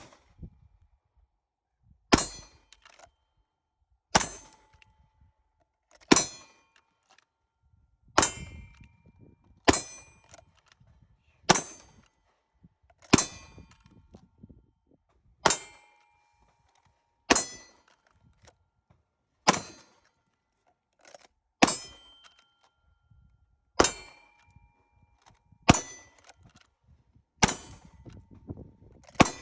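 Pistol shots striking steel targets, about one every two seconds and some fifteen in all. Each is a sharp crack followed by a brief metallic ring from the plate.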